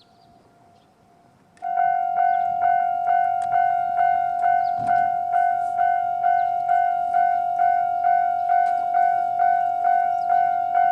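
Japanese railway level-crossing electronic warning bell starting up about one and a half seconds in, then sounding its usual single-pitched ding repeated steadily at about two and a half strikes a second, the signal that a train is approaching and the gates are coming down.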